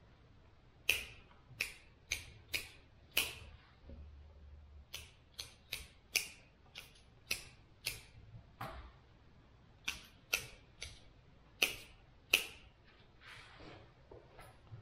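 Hand pruning shears snipping the lower side branches off bare-root spruce seedlings, about eighteen sharp clicks at an irregular pace of one to two a second. A rustle of branches near the end.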